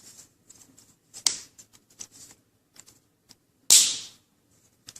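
Plastic retaining clips of a laptop's LCD screen bezel snapping loose as the bezel is prised off: two sharp snaps, one about a second in and a louder one near the end, with small plastic clicks between.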